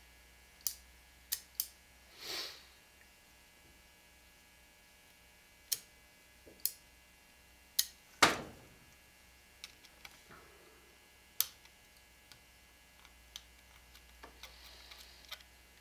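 Scattered sharp metallic clicks and taps of small steel tools and parts against a Rossi Model 69 revolver frame during hand disassembly, with a brief scrape about two seconds in and one louder knock about eight seconds in.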